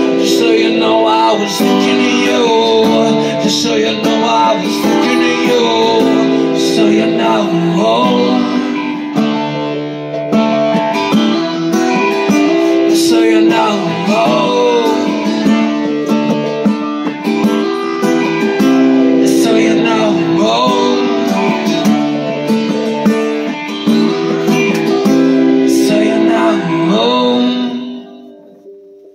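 Steel-string acoustic guitar strummed in steady chords, with a wordless bending melody over it. The music stops about a second before the end.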